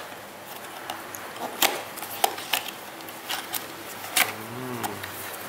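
A cardboard toy box being opened by hand: the end flap is pried up and tape peeled back, giving scattered crinkles and a few sharp clicks of card.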